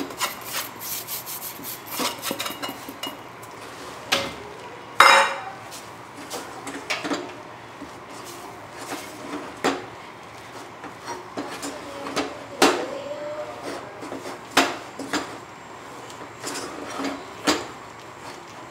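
Spatula stirring and scraping thick rice-flour dough in a stainless steel saucepan, knocking irregularly against the pan. The flour is being worked into boiling water to cook idiyappam dough. The strokes come quick and close together at first, then as separate knocks, the loudest about five seconds in.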